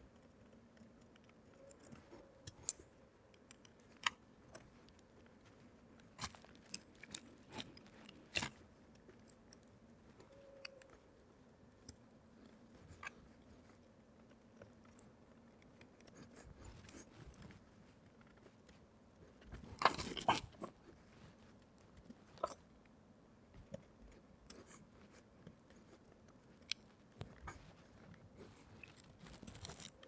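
Scattered small clicks and crackles of cables and plastic mounting clips being handled and pressed into place along a metal rail, with a louder burst of crackling about two-thirds of the way in.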